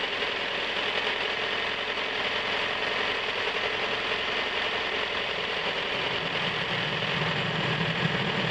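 The 1997 Toyota RAV4's 2.0-litre four-cylinder engine idling steadily, with a deeper hum joining in about six and a half seconds in. The owner suspects the number 2 cylinder is not firing.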